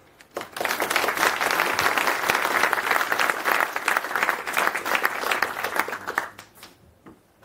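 Audience applauding after a talk. The clapping starts about half a second in and dies away near the end.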